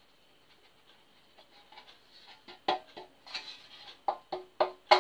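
Metal loaf tin being tapped and turned in the hands to spread flour over its greased inside: a run of light, irregular taps, faint at first and louder from about halfway through, some with a short metallic ring.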